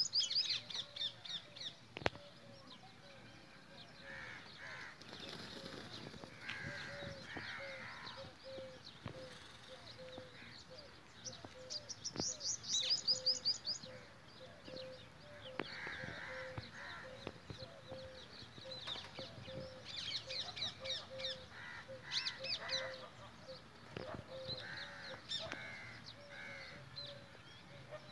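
Several birds calling: a low note repeated about twice a second throughout, with now and then a hoarse double call and bursts of high chattering, loudest a little before halfway.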